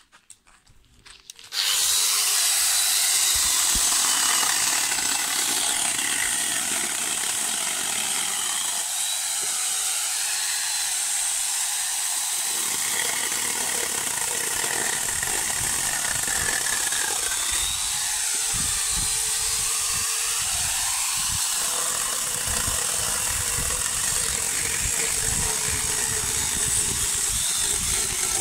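Corded angle grinder fitted with a small chainsaw attachment, switched on about a second and a half in and then running steadily as it saws through a lemon tree branch.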